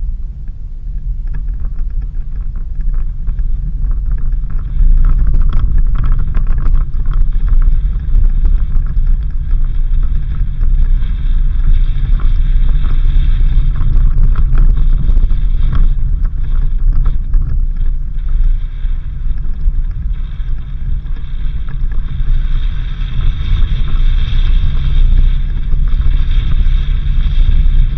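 Suzuki Jimny driving on a dirt road: a steady low rumble of engine and road with tyre noise and scattered small rattles and knocks, growing louder about five seconds in.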